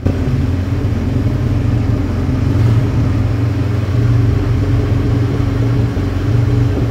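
Quad bike (ATV) engine running steadily at an even cruising speed while riding, with an unchanging low hum and a hiss of road and wind noise.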